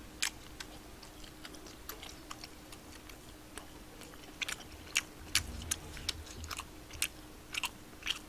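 A person chewing food close to the microphone, with scattered wet mouth clicks and smacks, and a few soft low thumps about five to six seconds in. A faint steady hum runs underneath.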